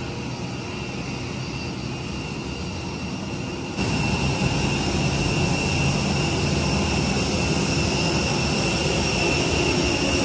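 Jet aircraft turbine running steadily: a high whine over a rushing noise, louder from about four seconds in.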